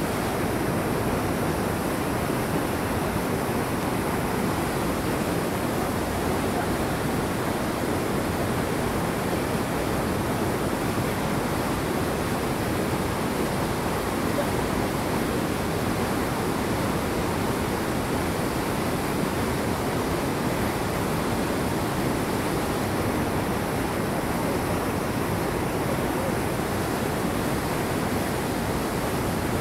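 Steady rush of a fast-flowing creek tumbling over rocks.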